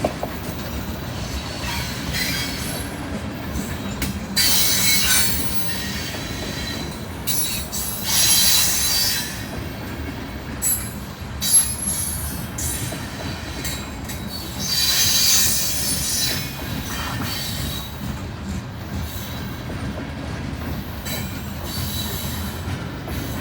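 Heavily loaded rock hopper and gondola cars of a freight train rolling past, their wheels rumbling steadily on the rail. High-pitched wheel squeal swells up several times.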